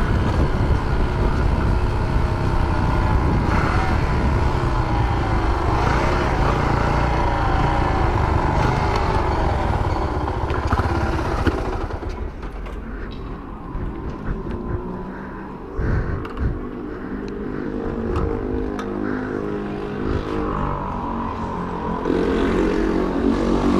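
Small Shineray 49cc moped engine running while riding, with heavy wind and road noise on the microphone. About halfway through it drops to a quieter, lower running note as the bike slows, and it picks up again near the end.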